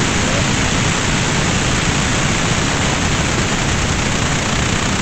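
Steady, loud rushing background noise with no distinct events in it.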